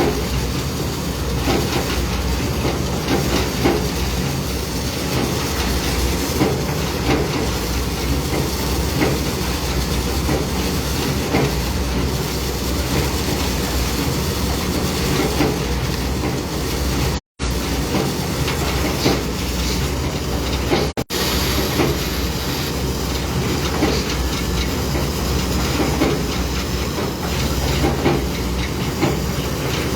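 Heavy construction machinery running steadily with a continuous rattling clatter and hiss, cut off abruptly for a moment about seventeen seconds in.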